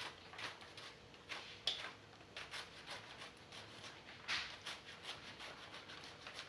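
Kitchen knife slicing through collard green (sukuma wiki) leaves held in the hand, a faint run of short crisp cuts about two a second.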